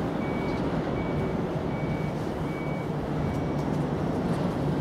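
A vehicle's reversing alarm beeping evenly, a little over once a second, over a steady engine rumble; the beeps stop near the end.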